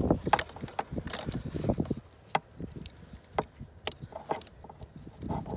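Hands working on a car's interior plastic trim, pulling a panel back: a run of irregular clicks and knocks, thick in the first two seconds, then sparser single knocks.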